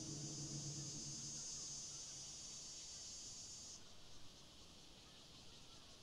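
Insects calling: a loud, high, even buzz that cuts off abruptly about four seconds in, leaving a fainter high insect chorus. A low hum fades out in the first second or two.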